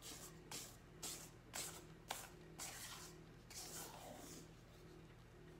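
Wooden spoon stirring thick cake batter in a stainless steel bowl: faint swishing, scraping strokes about twice a second.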